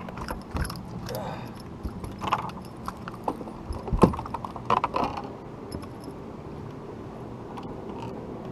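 Scattered clicks and knocks of a freshly caught bass being handled and unhooked on a boat deck, rod, lure and fish tapping against the deck, with the loudest knock about four seconds in. A faint steady hum runs underneath.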